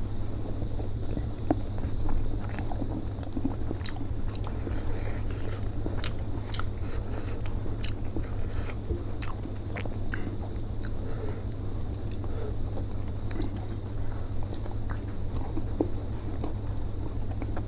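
Close-up chewing and biting of steamed chicken momos, with many small wet mouth clicks, over a steady low hum.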